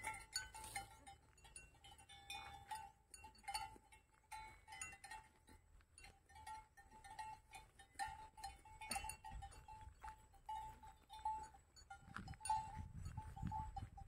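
Faint footsteps on a paved country road, with a steady high tone that fades in and out and some low rumbling near the end.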